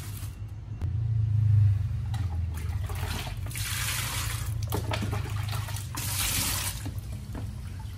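Water poured from a plastic cup over Malabar spinach leaves in a steel bowl in a stainless-steel sink, splashing in two pours about two seconds apart. Under it runs a low hum, loudest about a second and a half in.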